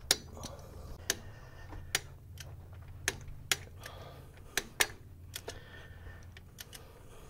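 Sharp single clicks at irregular intervals, typical of a ratchet wrench slowly turning the 3.6 V6's crankshaft over by hand to close the intake valves, with a low steady hum underneath.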